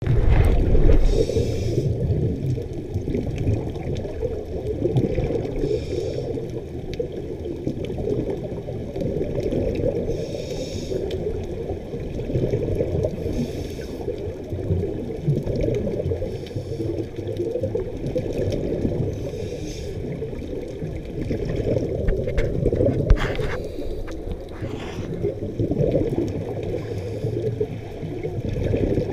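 Scuba regulator breathing heard underwater: a muffled low bubbling with a short hiss every few seconds as the diver breathes.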